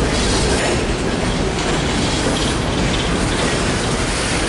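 Empty Norfolk Southern coal hopper cars rolling past: a steady rumble and clatter of steel wheels on the rails.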